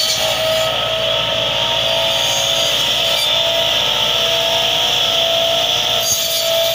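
Massey Ferguson 385 tractor's front-mounted hydraulic tree cutter, its circular saw blades spinning with a steady whine as they cut through tree branches, over the tractor's engine running.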